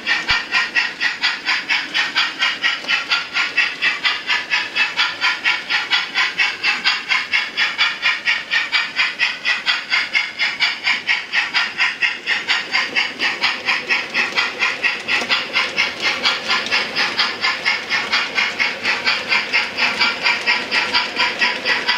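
Steam locomotive chuffing from a moving sound-fitted model steam locomotive: a steady, even beat of about four hissing chuffs a second.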